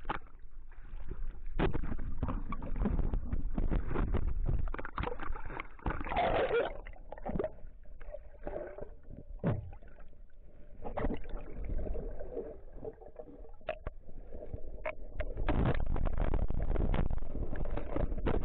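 Seawater sloshing and gurgling around a camera dipped at and below the surface, with knocks and splashes, turning into a steady, loud low rumble for the last few seconds.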